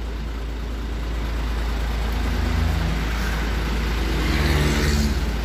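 Truck engine idling with a steady low hum. A faint hiss swells and fades about three to five seconds in.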